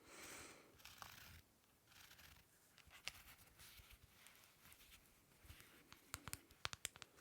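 Faint handling sounds of a small object close to the microphone: soft rustles and scrapes, then a quick run of sharp taps and clicks about six seconds in.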